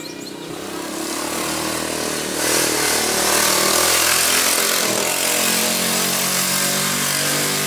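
Motor vehicle engine running close by, getting louder over the first two or three seconds and then holding steady.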